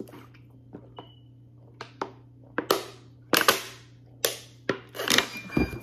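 Drinking from a thin plastic water bottle: a string of sharp crackles and pops as the bottle caves in with each pull, along with swallowing. The sounds come about once or twice a second and get louder over the second half.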